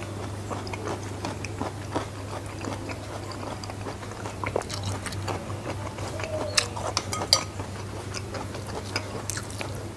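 Close-up chewing and mouth sounds with a metal spoon clinking in a ceramic soup bowl of sayur asem, with several sharp clicks in the second half over a steady low hum.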